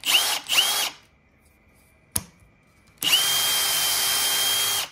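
Power drill with a twist bit drilling a 3/16-inch hole through aluminium angle. The motor gets two short squeezes of the trigger, each with a rising whine, then a click, then a steady run of about two seconds that stops suddenly.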